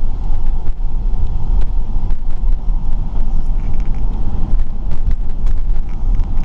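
Vehicle cabin noise while driving on wet pavement: a steady low engine and road rumble with tyre hiss and scattered light clicks.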